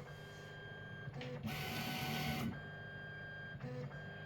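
3D printer's stepper motors whining through a series of short moves during automatic bed levelling, the pitch of the whine changing with each move. A louder, noisier move comes about a second and a half in.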